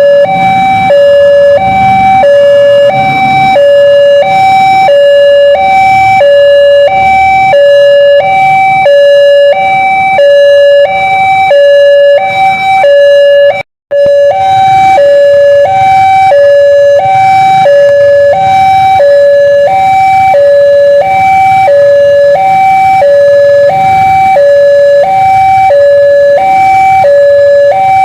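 Electronic warning alarm of a railway level crossing: a loud two-tone signal that alternates between a lower and a higher pitch, about one high-low cycle a second. It cuts out briefly about halfway through.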